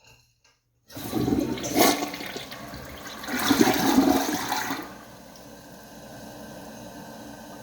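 Toilet being flushed: water rushes loudly from about a second in and surges twice. About five seconds in it drops to a steady, quieter hiss of water running on.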